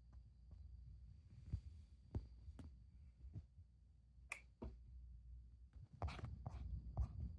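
Irregular faint clicks and knocks, about ten over several seconds and louder near the end, over a faint steady high whine and a low hum.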